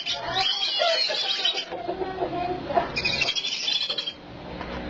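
Ducks calling: a busy mix of short high peeping chirps, with lower calls in between.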